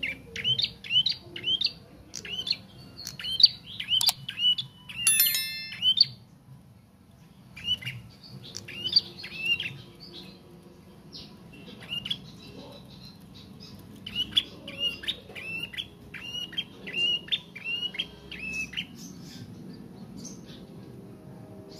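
Young prenjak trotol, a small caged songbird, giving runs of short, quick, high chirping notes with pauses between the runs: a juvenile practising its song. There is a brief click partway through.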